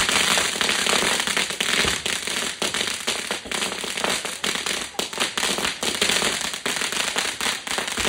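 A ground firework going off, with a dense, rapid crackle of many sharp pops and fizzing that keeps going without a break.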